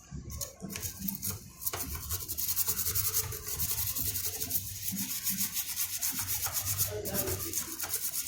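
Rapid back-and-forth scrubbing, many strokes a second and heavier from about two seconds in, as the work around the PS4 Pro's power supply connector is cleaned up.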